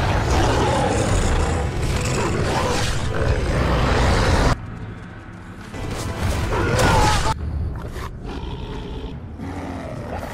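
Film battle soundtrack: loud dramatic music mixed with heavy hits and animal snarls, cutting off suddenly about four and a half seconds in. A wolf-like snarling roar follows a couple of seconds later, then a quieter stretch of music and effects.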